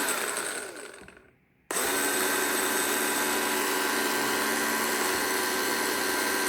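Cheap cordless angle grinder's motor whining steadily, switched off and spinning down for about a second and a half, then switched on again. It comes back to full speed at once and runs steadily. The owner finds it underpowered, with no kick of torque on start-up.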